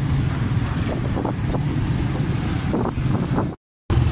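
Motorcycle engines running in busy street traffic. The sound cuts out briefly near the end, then a motorcycle engine runs louder close by.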